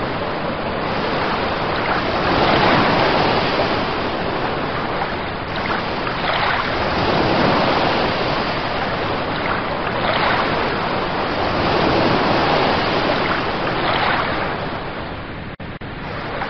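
Ocean waves breaking in a steady wash that swells and falls back every few seconds. The sound cuts out twice, very briefly, near the end.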